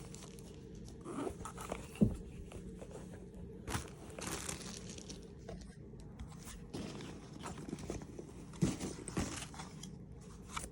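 Unboxing packaging and accessories handled by hand: rustling and crinkling in short spells, with scattered light knocks and one sharper knock about two seconds in.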